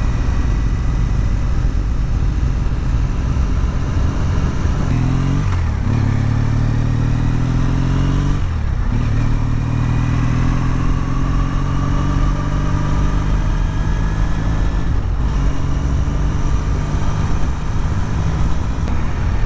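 Triumph T100's parallel-twin engine running under way. The note climbs, with short breaks and drops in pitch about five, eight and fifteen seconds in as the gears change.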